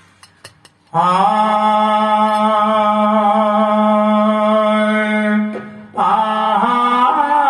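Man singing a long, steadily held note into a microphone, the opening of a devotional invocation to Lord Ganesh, begun after a second of quiet with a few faint clicks. The note breaks off after about four and a half seconds, and he starts a new, slightly higher line shortly before the end.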